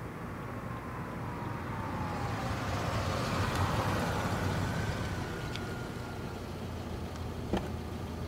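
A car driving in and pulling up. Its engine and tyre noise swells to a peak about halfway and then eases off. A sharp click near the end is a car door being opened.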